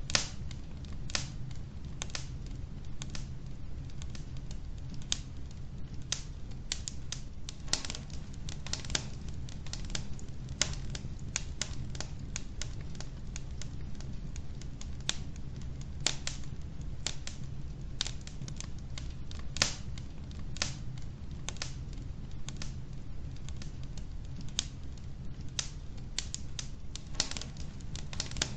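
Wood fire burning logs in a fireplace, crackling with irregular sharp pops, a couple to a few a second, over a steady low rumble.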